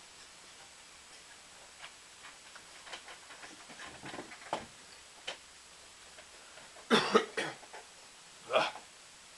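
A man chewing pizza with soft mouth clicks, then coughing: three coughs in quick succession about seven seconds in and one more a second and a half later.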